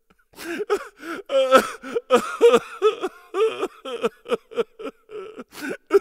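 A voice crying theatrically: a run of short, wavering sobs and wails that bend up and down in pitch, like a cartoon crying sound effect.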